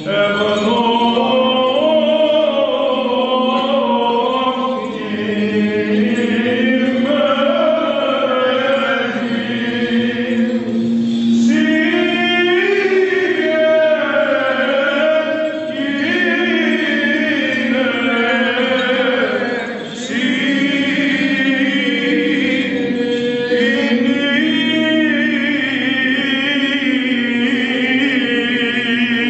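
Byzantine chant in a Greek Orthodox church service: male voices sing a slow, ornamented melody over a steady held low drone note (the ison), pausing briefly between phrases.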